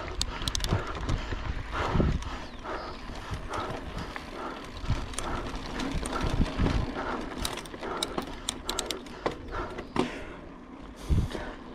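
Mountain bike being ridden over a rough dirt trail, with irregular rattling, clicks and knocks from the bike, over a low rumble of wind on the camera microphone.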